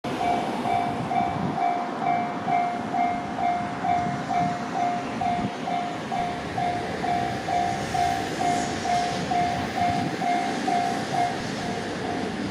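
Japanese level-crossing warning bell ringing steadily, about two electronic 'kan-kan' strokes a second, over the broad noise of a train passing the crossing.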